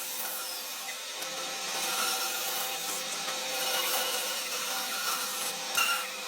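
Steady scraping and rubbing of a hand tool working wood, with gentle swells in level.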